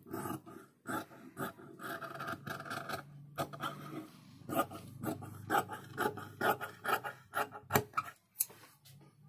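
Large tailor's shears cutting through shirt fabric on a cutting table: a steady run of short snips, about two or three a second, as the blades close through the cloth.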